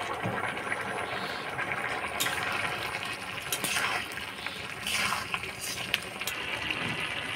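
Pot of gobindobhog rice with milk and water bubbling as it comes to the boil, with a few short clicks over the top.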